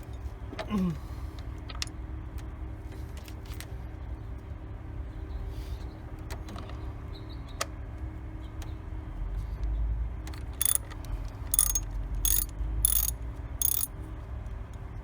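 Ratchet wrench clicking in five short bursts, about one a second, in the second half, with a few lighter tool clicks before it, over a steady low hum.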